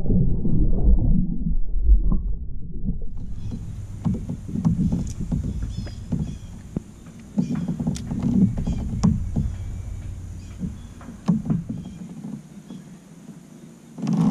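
Muffled splashing heard through an underwater camera as a fish is let go back into the lake. After about three seconds it changes to the open-air sound of a fishing kayak: water lapping at the hull, with scattered clicks and knocks.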